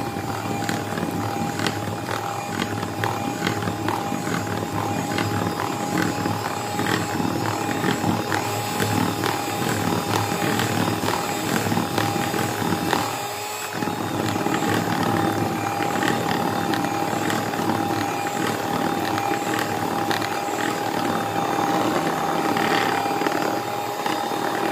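Electric hand mixer running steadily with a constant motor whine, its twin beaters whisking a runny flour batter in a plastic bowl, with light ticking over it. The sound dips briefly about halfway through, then carries on.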